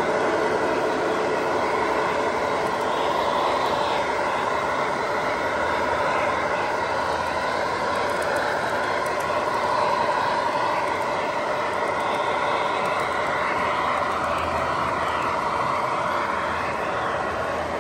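O-gauge model diesel locomotive, an MTH Premier ALCo RS-11, running past with its freight train: a steady running noise of wheels on the track mixed with the locomotive's electronic diesel-engine sound.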